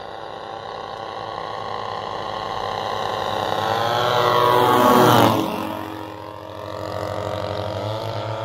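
The twin 38 cc gas engines of a large RC OV-10 Bronco model plane making a low pass. The engine drone grows louder as the plane approaches and is loudest about five seconds in as it passes. Then the pitch drops and the sound fades as it flies away.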